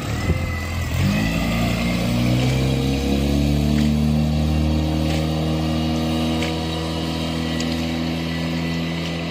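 Suzuki outboard motor on a small aluminium boat revving up as the boat pulls away, its pitch rising over the first few seconds. It then runs steadily at speed and slowly fades as the boat moves off.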